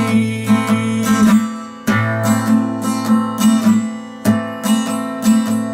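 Acoustic guitar strummed in a steady rhythm, chord after chord, as an instrumental break with no singing.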